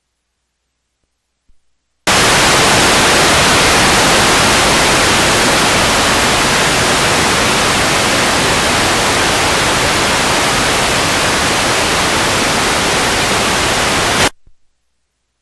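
Loud, even static hiss of analog video snow on an old videotape recording. It starts suddenly about two seconds in and cuts off abruptly near the end.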